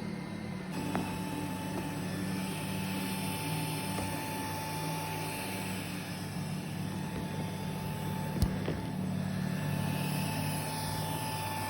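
Xiaomi S10T robot vacuum cleaning: a steady hum from its suction fan and brushes, with a thin steady whine that comes in just under a second in, and one sharp click about two-thirds of the way through.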